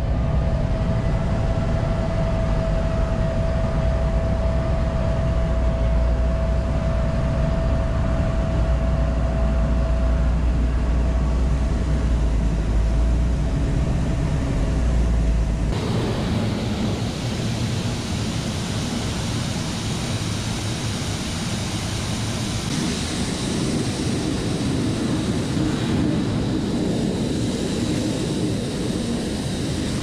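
A Peterbilt dump truck's diesel engine running, heard from inside the cab, with a steady whine over the low rumble as the bed is being raised. About halfway through it changes abruptly to the steady rushing hiss of soybeans pouring out of the tipped dump bed's tailgate into a grain pit, with engines running underneath.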